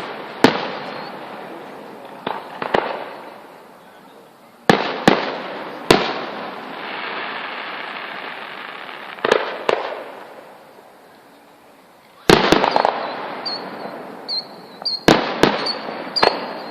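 Fireworks going off: about a dozen sharp bangs in irregular clusters, each followed by a long fading tail.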